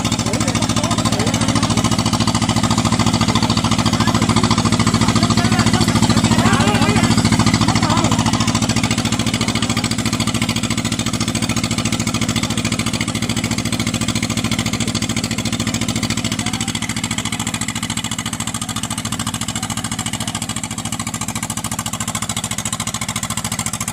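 Diesel engine of a rice combine harvester running steadily, growing louder over the first several seconds, then easing off.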